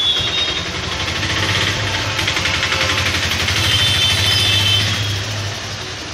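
An engine running with a rapid, even beat, growing louder to a peak about five seconds in and then dropping away.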